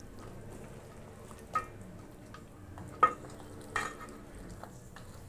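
A spoon stirring chicken in a cooking pot over a faint steady sizzle, clicking against the pot a few times, the sharpest knock about three seconds in.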